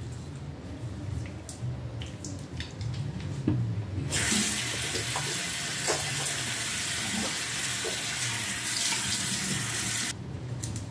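Bathroom sink faucet turned on about four seconds in, running steadily for about six seconds and then shut off, with small splashes as foamy facial cleanser is rinsed off the face by hand.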